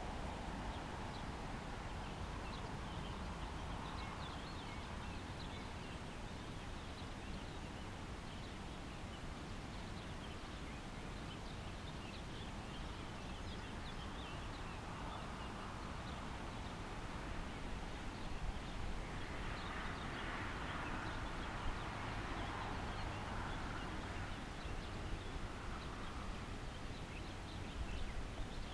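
Steady outdoor background noise with a low rumble, dotted with faint, short high chirps throughout.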